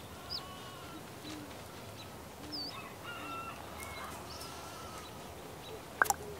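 Birds calling over a steady background hiss: short honking fowl calls and higher chirps and whistles. About six seconds in there is a single sharp click.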